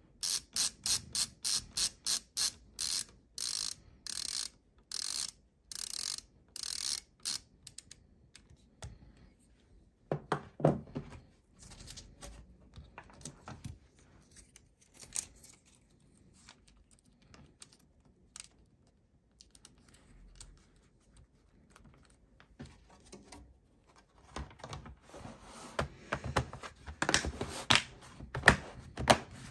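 LTT ratcheting screwdriver clicking steadily, in groups about three times a second, as its ratchet turns a small screw down on an M.2 Wi-Fi card in a laptop. The clicking stops after about seven seconds. Light knocks follow, and near the end plastic clicks and rubbing as the laptop's bottom cover is pressed into place.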